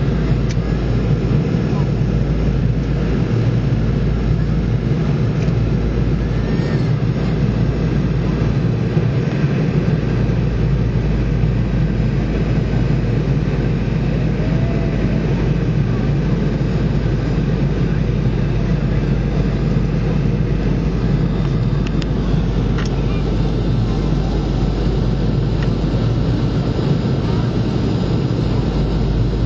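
Steady roar of a Boeing 717's cabin in flight, heard from inside: the twin rear-mounted Rolls-Royce BR715 turbofans and the rush of airflow make a constant low rumble with no breaks.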